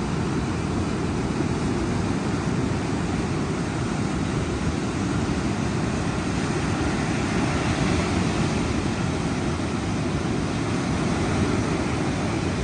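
Ocean surf rushing steadily on the shore, a dense, even wash of water noise that sets in suddenly at the start.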